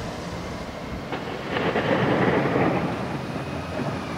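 Heavy thunderstorm: a steady rush of heavy rain that swells louder between about a second and a half and three seconds in.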